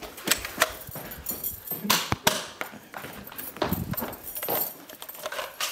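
Toy dart blasters being fired during a game: irregular short clicks and knocks of the blasters and landing darts, with brief scuffling as the players move and grab darts.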